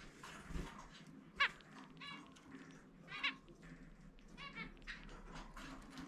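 Male zebra finch singing: a quick run of short nasal buzzy notes, with two louder, sharper notes about one and a half and three seconds in.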